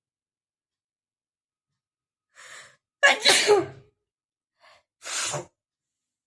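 A person sneezing twice: a faint intake of breath, then a loud sneeze about three seconds in, and a second, quieter sneeze about two seconds later.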